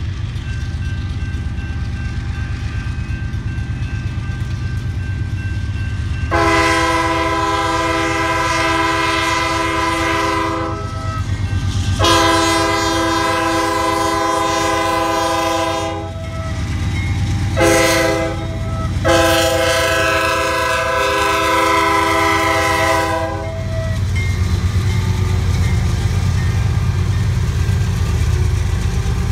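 Air horn of a CSX GE Dash 8 diesel locomotive sounding the grade-crossing signal: two long blasts, a short one and a final long one, starting about six seconds in. Under and around it the lead units' diesel engines and the passing train rumble steadily.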